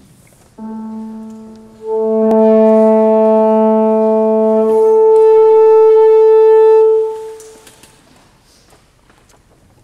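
A piano sounds a single note about half a second in and an alto saxophone joins a second later with one long steady tuning note, held for about five seconds before it stops.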